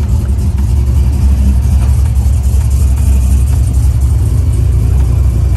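Truck engine running steadily with a deep, low rumble.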